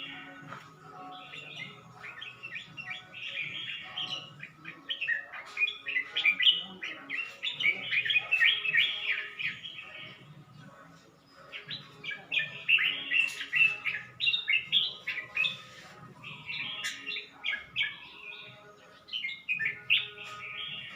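Red-whiskered bulbul singing in long runs of quick chattering, chirping phrases, with a break of about a second just after halfway.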